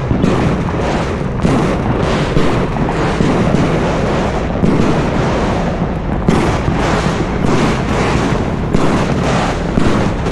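Fireworks going off in a dense, continuous barrage: several bangs a second, overlapping, with no pause.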